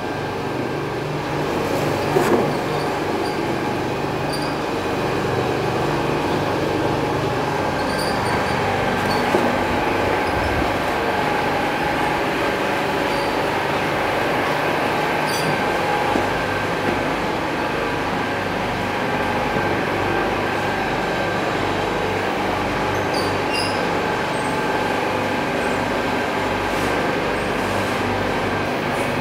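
Steady drone of factory machinery in a briquette plant, with a thin high whine held throughout. A few light knocks sound over it, the loudest about two seconds in.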